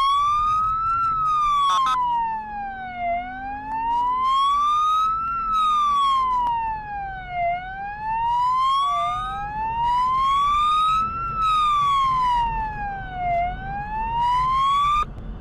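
Police car siren wailing: one tone slowly rising and falling, about one full cycle every four seconds. Heard from inside the pursuing car, over low road and engine noise.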